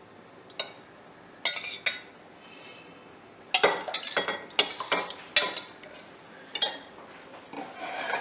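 Spoons and dishes clinking and knocking: a few separate sharp clinks at first, then a busy run of clinks in the middle and a few more near the end, as spices are spooned out for a chutney.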